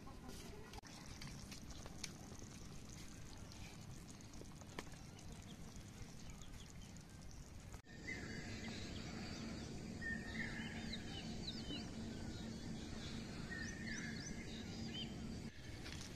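Quiet outdoor ambience with a few light clicks. About halfway it changes abruptly to repeated bird calls, short chirps and quick rising whistles, over a steady low hum.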